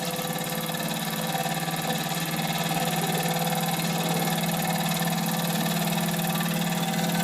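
Wilesco D455 toy steam engine running fast and smooth under steam: a steady, rapid mechanical whir of cylinder exhaust and spinning flywheel.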